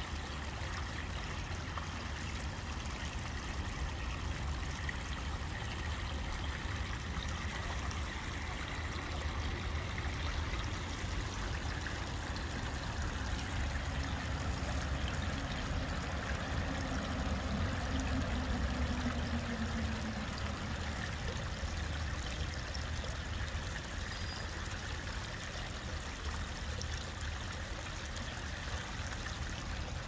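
Small creek trickling over rocks: a steady flow of running water, with a low rumble underneath.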